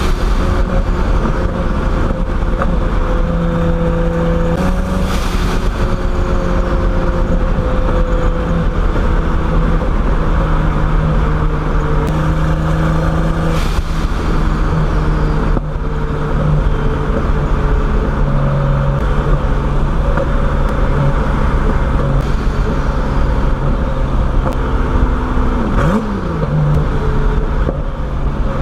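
Turbocharged BMW E30 engine running at a cruise, its note holding steady pitches that shift up and down every few seconds as the throttle changes. A few brief sharp knocks break in, one near the middle and one near the end.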